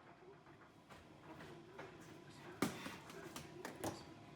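Faint handling sounds: one sharp clack about two and a half seconds in, then a few light ticks.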